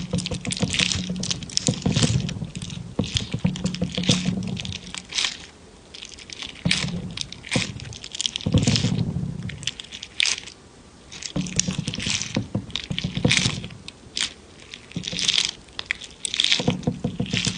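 Wet squishing and crackling of jelly being pressed and popped, in bursts of a few seconds with short pauses between them.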